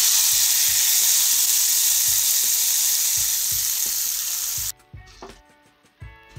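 Hot tempering of mustard seeds, dried red chillies and curry leaves sizzling loudly as it is poured over a pot of thick puzhukku. The sizzle stops abruptly about three-quarters of the way through.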